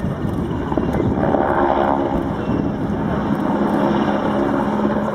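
PZL W-3 Sokół helicopter in flight: the fast, even chop of its four-blade main rotor, with a steady tone joining in about two seconds in.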